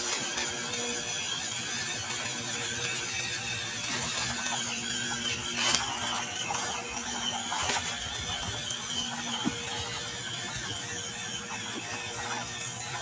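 A toy RC pickup truck's small electric motor and gears running with a whirring, grinding mechanical noise, with a couple of sharp knocks partway through.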